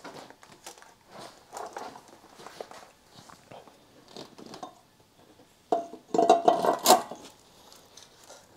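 Metal clinking and knocking as a turbo exhaust manifold is handled and fitted onto the cylinder head of a Honda D16 engine. About six seconds in comes a louder clatter of metal on metal with a brief ring.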